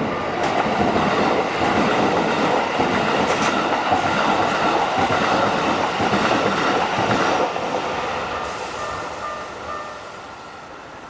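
Keikyu Airport Line train passing over a level crossing: the steady rumble and rush of wheels on the rails lasts about seven seconds, then fades away as the train moves off.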